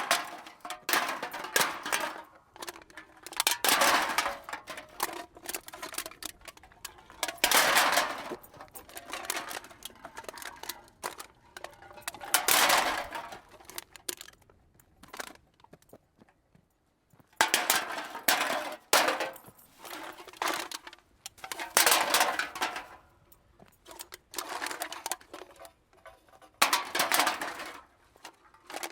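Cans dumped into a cart, recorded close: bursts of rattling clatter as the cans tumble against each other and the cart, coming every few seconds, with a pause of about three seconds just past the middle.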